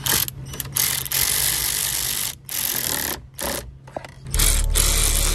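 Small power driver running in short bursts, stopping and starting, as it drives in the bolts that hold a paddle shifter to the steering wheel; it runs longer and steadier near the end.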